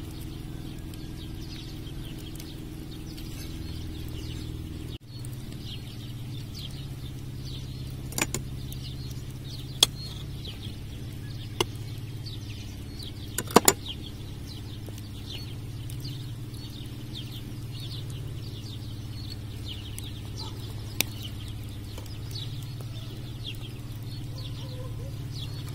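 Steady low hum with small birds twittering throughout, and a few sharp clicks of a knife against a plate as butter is cut, the loudest cluster about halfway through.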